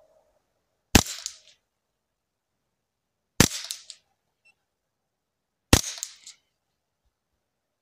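Three shots from a Remington 597 semi-automatic .22 LR rifle firing KSPZ Biathlon cartridges, about two and a half seconds apart, each a sharp report with a short echo.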